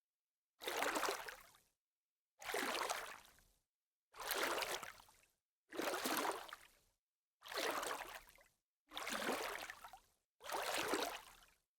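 Water splashing: seven separate splashes, each lasting about a second and fading out, with dead silence between them.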